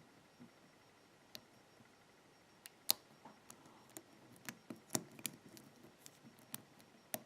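Faint, sharp metallic clicks from a lock pick working the pin stacks of a padlock held under tension: serrated pins clicking as they are lifted and set. One click comes about a second in, then a dozen or so irregular clicks through the second half.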